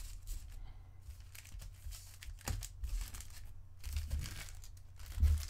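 Foil wrappers of Topps Chrome baseball card packs crinkling and rustling as the packs are shuffled and stacked by hand on a tabletop, with a soft thump near the end.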